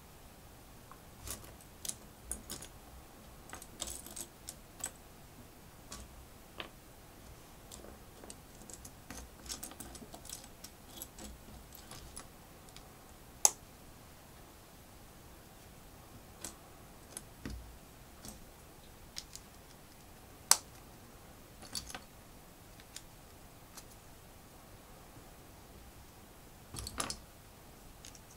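Plastic LEGO bricks and pieces being handled and pressed together: scattered light clicks and rattles, with a few sharper snaps, the loudest about halfway through and two-thirds of the way through.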